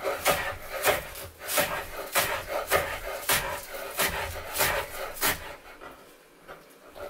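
Chef's knife chopping chives on a wooden cutting board: about nine chops at a steady pace of nearly two a second, then a pause near the end.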